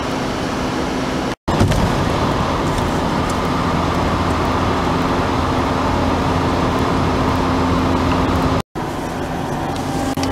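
Road and engine noise heard inside a car's cabin at motorway speed: a steady rumble with a low drone, while driving through a road tunnel. It breaks off abruptly twice, about a second and a half in and near the end, then carries on just as steadily.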